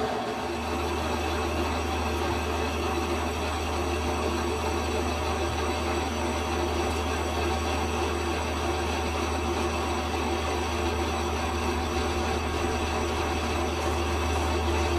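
Metal lathe running steadily with a constant low hum.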